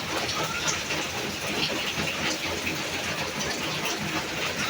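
Heavy rain pouring steadily, a dense even hiss of water with scattered drop patters.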